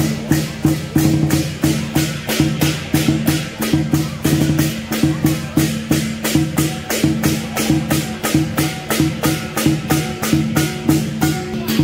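Lion dance percussion: drum, cymbals and gong struck in a steady rhythm of about four beats a second.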